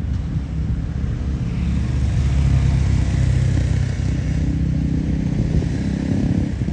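Freight train's container wagons rolling over the rails: a steady low rumble of wheels on track, with a hiss of wheel on rail that swells for a few seconds in the middle.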